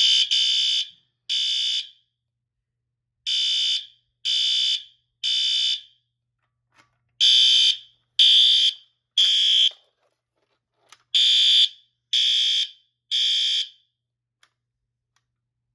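System Sensor SpectrAlert Advance fire alarm horn sounding the temporal-three evacuation signal, set off by the pull station: loud, high-pitched beeps in groups of three with a short pause between groups, stopping about fourteen seconds in.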